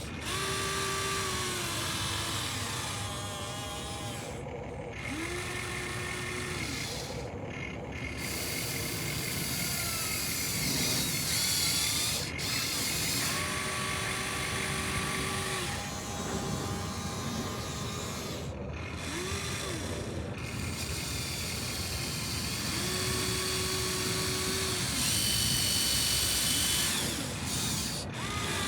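Small electric gear motors of a remote-control toy construction machine running in short spells of two to three seconds each, about four times. Each spell is a whine that rises quickly, holds a steady pitch and then drops away, over a steady rough gear noise.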